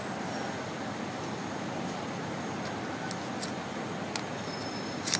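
Steady background noise with a few light clicks from the plastic handlebar phone holder as the iPhone 5 is pulled out of it. The sharpest click comes just before the end.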